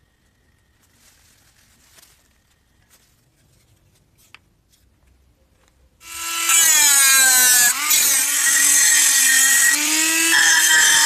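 Handheld rotary tool with a grinding stone starts suddenly about six seconds in and runs at high speed with a high whine. Its pitch sags and recovers as the stone is pressed into the centre hole of a metal jar lid. Before it starts there are only faint handling rustles and a click.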